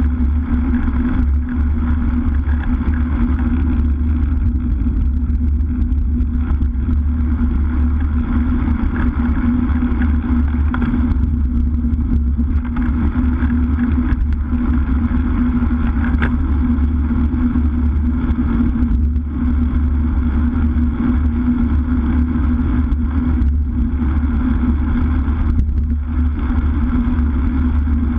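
Wind rushing over a handlebar-mounted action camera's microphone on a road bike at speed, with the rumble of tyres on asphalt; a loud, steady low roar.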